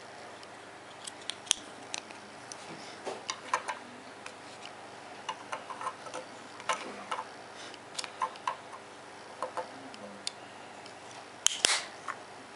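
Irregular light clicks and taps of small objects being handled, with a sharper cluster of clicks near the end, over a steady low hum.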